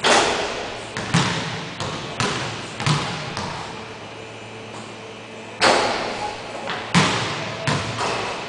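Basketball bouncing on a hardwood gym floor, about nine irregularly spaced thuds, each echoing through the large hall. The loudest comes right at the start as the shot hits the rim.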